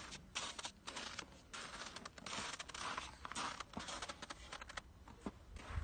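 Footsteps crunching in snow: a run of short, irregular crunches.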